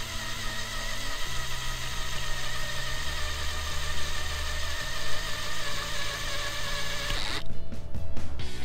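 Cordless drill running loud and steady as it bores a hole through the metal case of an egg timer. Near the end the steady whine gives way to a rapid clattering chatter.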